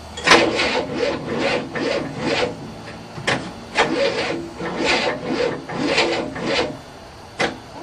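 The 1967 Cadillac's 429 V8 being cranked by its starter, turning over slowly in uneven rasping strokes about two a second without catching.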